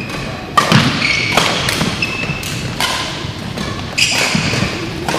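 Badminton play on an indoor court: a series of sharp racket strikes on the shuttlecock and footfalls on the court floor, irregularly spaced, with a few brief high squeaks from court shoes.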